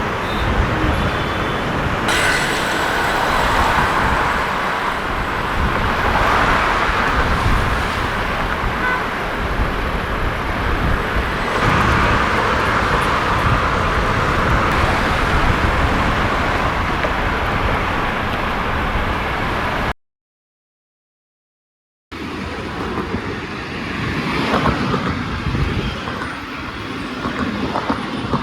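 Steady road traffic noise, a dense rush of passing vehicles, broken by about two seconds of dead silence about two-thirds of the way through.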